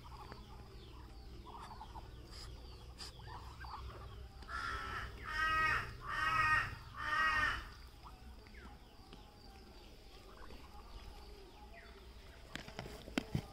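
A crow cawing four times in quick succession, the first call fainter; a couple of sharp knocks near the end.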